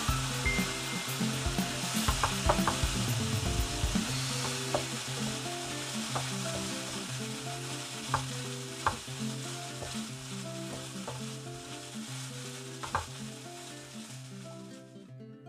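Minced pork sizzling in chili oil in a nonstick frying pan, stirred with a wooden spatula that clacks against the pan now and then. The sizzle slowly fades and cuts off near the end.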